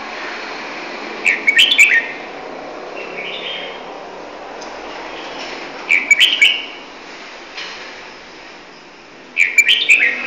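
Caged songbird singing three short bursts of quick, high chirps, each under a second long and about four seconds apart.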